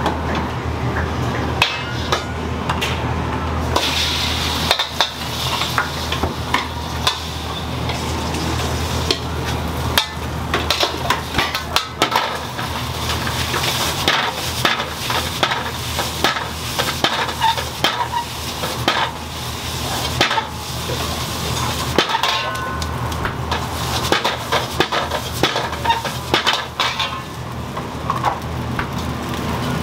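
Fried rice being stir-fried in a wok: a metal ladle knocking and scraping against the wok many times over a steady sizzle, with a steady low hum underneath.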